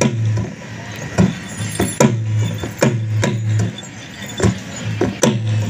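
Drum-led folk music accompanying a traditional dance: sharp drum strikes in a steady rhythm, a little under a second apart, several of them followed by a low ringing tone.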